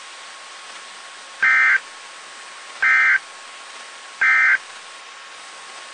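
Emergency Alert System end-of-message signal: three short bursts of shrill two-tone digital data, evenly spaced about a second and a half apart, over a steady hiss.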